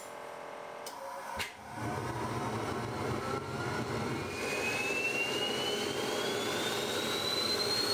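Homemade turbocharger-based gas turbine engine running up to speed: a sharp click or two, then a steady rush of air with a whine that climbs steadily in pitch as the turbine spools up.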